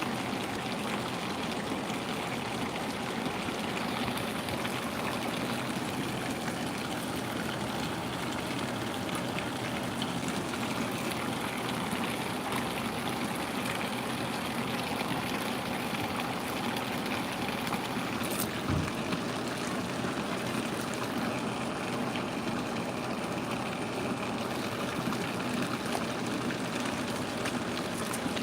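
Steady running water, an even rushing or trickling sound like a stream or water feature, with a single short click about two-thirds of the way through.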